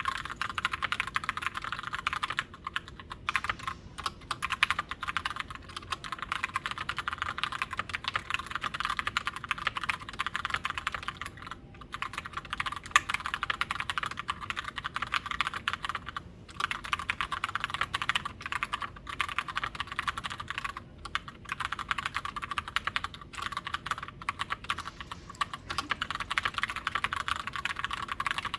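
Continuous typing on a Glorious GMMK White Ice TKL mechanical keyboard with tactile Gateron Brown switches and clipped, lubed stabilizers: a dense run of key clacks broken by a few short pauses.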